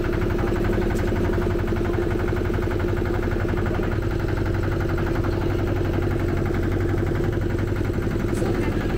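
Motorboat engine running steadily with an even hum.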